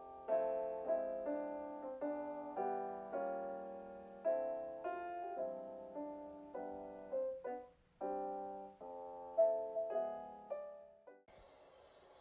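Background piano music: a gentle melody of struck notes. It stops near the end, leaving a faint steady hiss.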